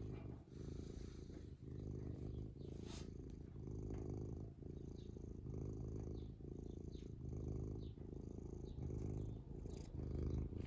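Domestic cat purring steadily, the purr swelling and dipping with each breath about once a second. A brief sharp click about three seconds in.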